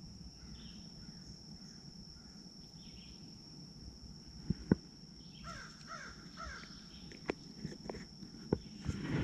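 Crows cawing in the distance over a steady high-pitched tone, with a few sharp clicks from about halfway through.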